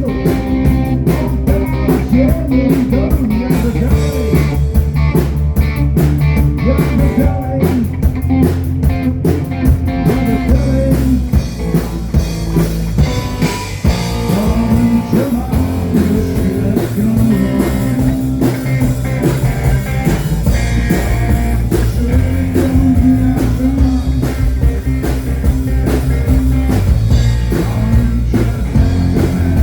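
A live blues-rock band playing: guitar with bending notes over bass and drums, the drum beat clearest in the first third.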